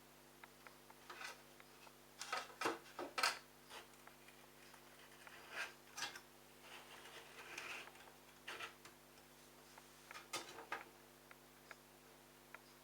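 Intermittent clicks and knocks of plastic parts being handled while the washing machine's drain pump filter cap is worked open, with a cluster of sharper knocks about two to three seconds in, over a faint steady hum.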